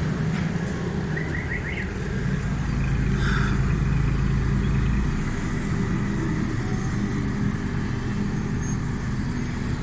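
Suzuki Cultus three-cylinder carburetted engine idling steadily, heard at the exhaust silencer, with a deeper low rumble for about the first five seconds. It runs evenly with no misfiring, a sign that the carburettor and distributor faults have been put right.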